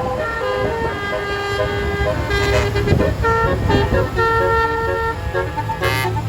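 Tour bus's basuri telolet horn playing a melody of held notes that step from pitch to pitch, over the bus's engine running.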